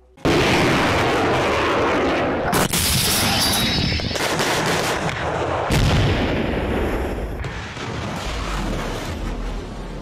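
Artillery firing: a sudden loud blast, then continuing booms and rumble. Sharper reports come about two and a half, six and seven and a half seconds in.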